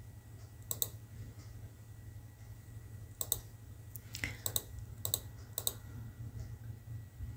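Computer mouse clicking: about six separate clicks spread unevenly over a few seconds, most of them a quick double tick, over a faint steady low hum.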